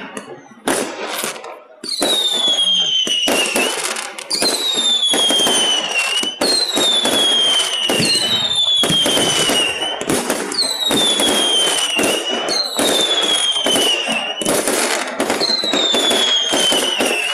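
Fireworks display: a rapid series of whistling fireworks, each starting with a sharp bang and a shrill whistle that falls in pitch, about one every second and a half, with popping and crackling between. The sound is heavily compressed by a phone microphone.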